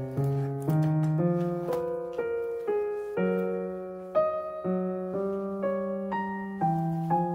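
Background piano music: an unhurried melody of single struck notes, each fading before the next.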